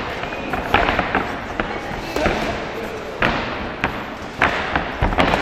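Kickboxing gloves and kicks landing on an opponent: about half a dozen sharp smacks at irregular intervals, ringing off the hard walls of a gymnasium, over voices from the crowd.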